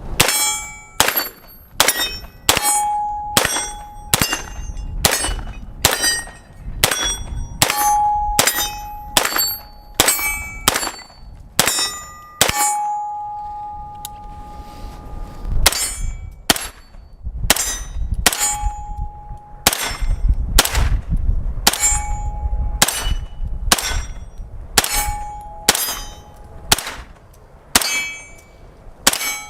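A Bersa BAR9 9mm AR pistol with a 4-inch barrel and compensator fired semi-automatically at about one shot a second, with a pause partway through. Many shots are followed by a ringing metallic ding from a struck target, and wind rumbles on the microphone at times.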